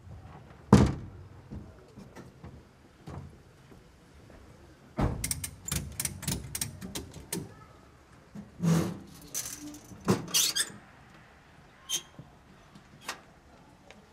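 Irregular knocks, clatters and thumps of a wooden coffin being handled and loaded into a funeral vehicle. A single hard knock comes about a second in, and a rapid run of clicks and knocks follows a few seconds later.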